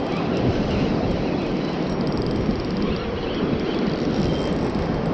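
Steady rush of surf and wind on the microphone while a spinning reel is cranked against a hooked fish.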